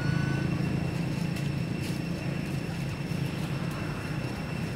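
Steady low engine drone of a distant vehicle or aircraft, fading slightly.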